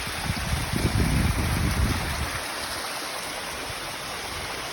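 Creek water rushing over the top of a small waterfall, a steady even rush, with a heavier low rumble through the first couple of seconds.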